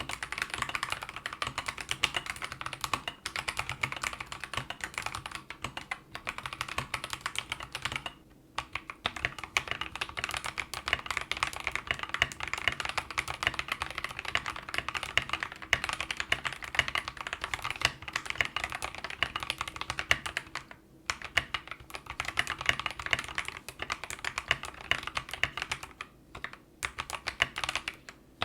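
Continuous fast typing on a mechanical keyboard fitted with Akko CS Jelly Pink switches. The switches are stock at first and lubed after a brief pause about eight seconds in.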